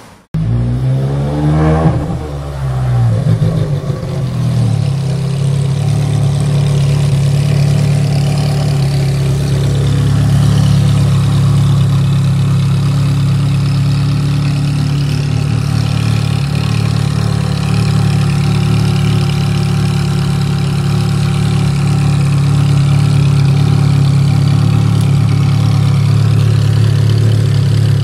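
Ferrari 360's V8 engine blipped once, its pitch rising and falling in the first few seconds, then idling steadily.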